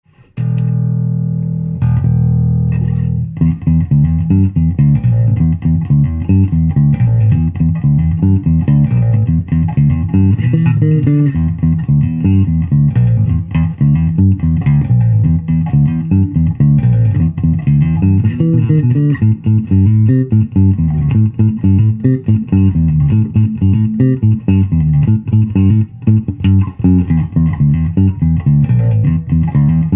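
JCraft JB-1 five-string electric bass being played: a few notes held for about three seconds, then a steady line of quick plucked notes.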